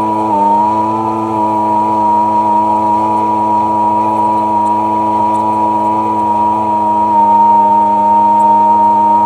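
Sea-Doo personal watercraft engine running under way at a steady high speed. Its pitch climbs slightly in the first second, then holds level.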